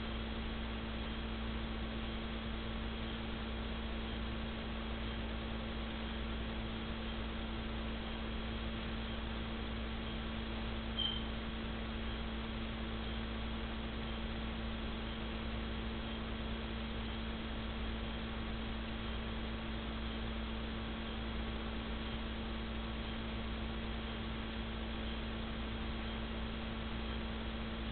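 Steady electrical hum with a low hiss, unchanging throughout; a brief faint high blip about eleven seconds in.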